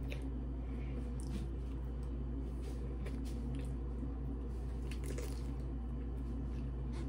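Close-up eating sounds: biting and wet chewing of cucumber slices, with scattered mouth clicks and squishy smacks, over a steady low hum.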